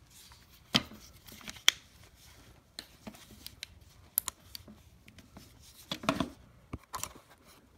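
Nylon chair fabric rustling and crinkling as it is handled, with scattered sharp clicks from a cordless electric staple gun and wood strip being set in place. The two loudest clicks come about a second apart near the start, and a cluster follows near the end.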